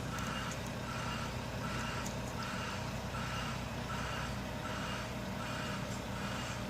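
Vehicle reversing alarm beeping in a steady rhythm, about one beep every three-quarters of a second, over the low, steady running of a diesel engine.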